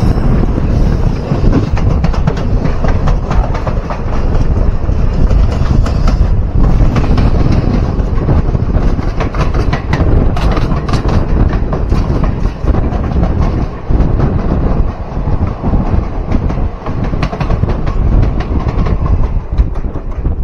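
An express train hauled by a WAP-7 electric locomotive passing at speed on the adjacent track, its wheels clattering over the rail joints. It blends with the rush of wind and the running noise of the train it is heard from, through an open carriage door.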